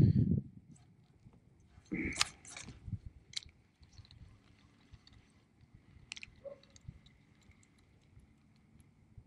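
Faint handling noise from fishing rod, reel and kayak gear. A short low rumble at the very start, a quick run of sharp rustles and clicks about two seconds in, then scattered soft clicks.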